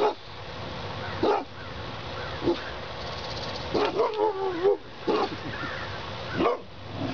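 Boxer dogs giving a few short barks, with one longer wavering whine about four seconds in.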